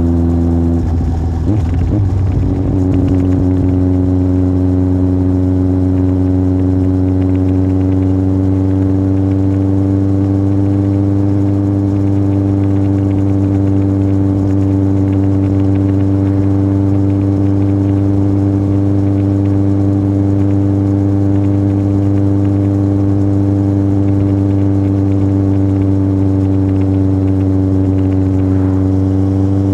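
Yamaha Fazer 1000's inline-four engine through an aftermarket MIVV exhaust, running steadily under way. The note breaks briefly about a second in, then holds at nearly constant revs, dipping slightly and rising again near the end.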